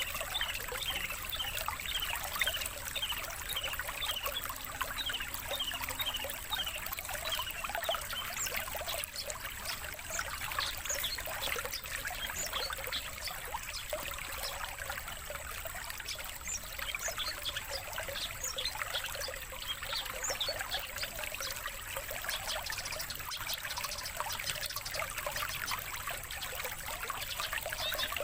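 Songbird chatter played as a training 'master' track, with a long-tailed shrike (cendet) lure call among other competition songbirds: many short, high chirps in fast, overlapping runs with no pause.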